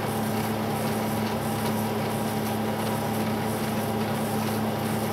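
HP LaserJet 9050 laser printer warming up, running with a steady, even hum, with its new toner cartridge installed. It sounds just like it does with an ordinary toner cartridge.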